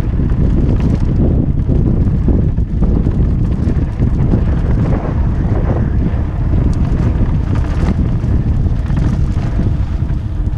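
Wind buffeting the rider's action-camera microphone during a fast mountain-bike descent on a dirt trail, with the bike's tyres rumbling and frequent small knocks and rattles over the bumps.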